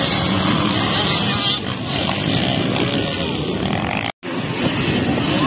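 Dirt bike engines running, a dense steady din. The sound cuts out completely for an instant about four seconds in.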